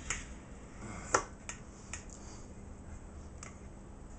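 Metal spatula clicking against a metal pie pan as a cooked salmon fillet is worked off its skin: five or so sharp clicks, the loudest about a second in.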